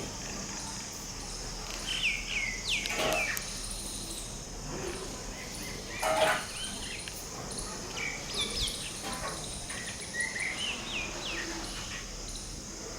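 Common myna calling in several bouts of short, falling whistled notes mixed with a few harsher calls. A steady high insect drone runs underneath.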